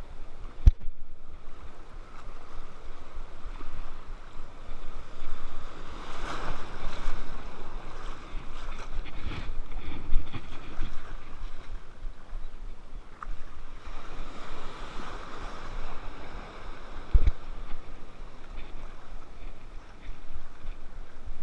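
Small waves washing and swirling in shallow water, swelling twice, with wind buffeting the microphone. Two sharp knocks stand out, one near the start and one after about seventeen seconds.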